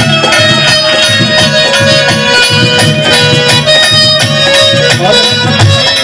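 Instrumental interlude of live Haryanvi ragni folk music: a steady drum rhythm with rattling percussion under a held melody line.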